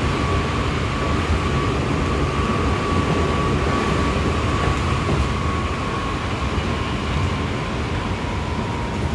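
Interior running sound of a Seibu 6000-series electric train with Hitachi GTO-VVVF drive. A low rumble of wheels on rail sits under a steady high whine that slowly drops a little in pitch.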